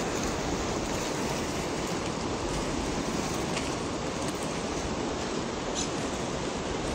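Steady rushing noise of wind and choppy water along a dam's concrete bank, with no distinct events.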